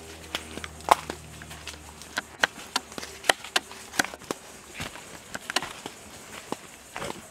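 Footsteps crunching through dry leaf litter, with sharp snaps of small dry twigs underfoot. The crunches and snaps come irregularly, about two a second, and the loudest snap is about a second in.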